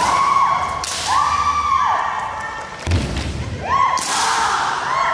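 Kendo players shouting kiai, several long high-pitched cries that swell and fall, with sharp cracks of bamboo shinai on armour at the start, about a second in and near four seconds. A low thud comes just before three seconds.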